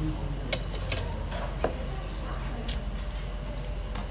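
Metal spoon and chopsticks clinking against dishes and an earthenware soup pot while eating, several short sharp clinks spread through, over a steady low hum of room noise.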